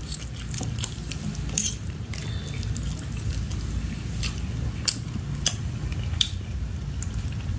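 Eating sounds: a spoon and fork scooping sweet-and-sour fried fish off a metal tray, heard as scattered soft clicks and clinks over a low steady hum.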